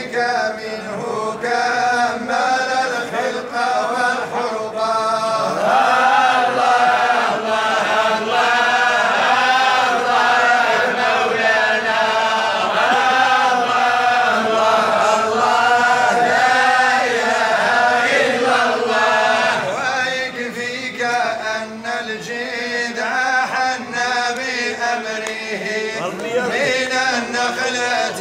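A group of men chanting Sufi madih, devotional praise, in unison, with long held phrases that rise and fall together. The chant grows fuller from about six seconds in and eases back at about twenty seconds.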